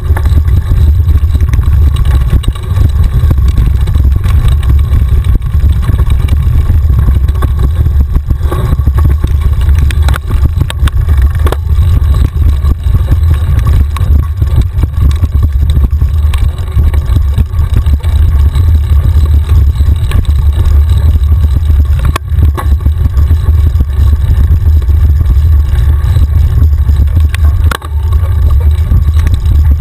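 Mountain bike riding fast over a rough dirt trail, heard through a bike-mounted camera: a loud, steady wind rumble on the microphone, with the bike rattling and knocking sharply over bumps now and then.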